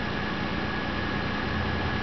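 The 2001 Nissan Pathfinder's 3.5-litre V6 idling steadily after a remote start.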